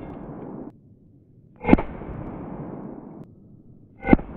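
Two shots from a .22 LR Ruger Mark IV pistol, about two and a half seconds apart, each a sharp crack followed by a lingering echo.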